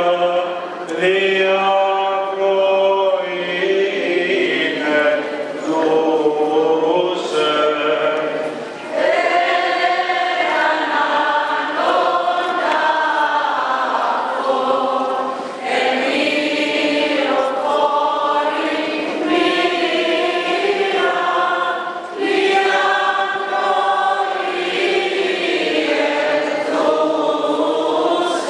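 Greek Orthodox church choir singing a hymn in long held phrases, with brief breaks between phrases.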